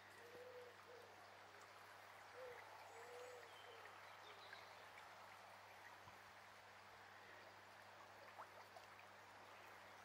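Small brook flowing after rain: a faint, steady rush of water. A bird gives a few soft, low hooting coos in the first few seconds.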